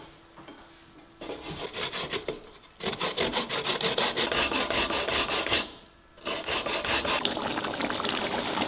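Fresh coconut flesh being grated by hand on a flat punched-metal grater in a wooden board: quick rasping strokes in runs, starting about a second in, with a brief pause near the third second and a longer one about halfway through.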